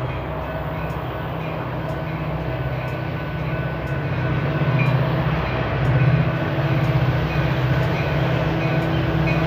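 Metra diesel-electric locomotive leading a commuter train toward the listener at speed, its engine drone growing steadily louder as it approaches.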